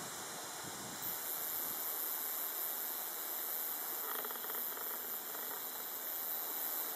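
Steady high-pitched insect buzzing that sets in about a second in, with a faint rapid rattling trill around four seconds in.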